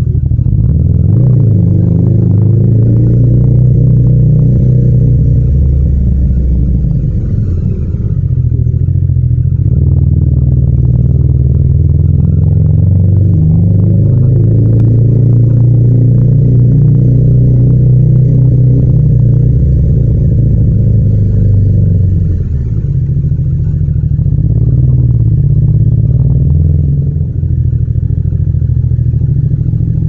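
Yamaha MT-07's 689 cc parallel-twin engine pulling a motorcycle along at low speed in first gear, the throttle opened and eased off by turns. The engine note drops briefly about eight seconds in, and again about 22 and 27 seconds in.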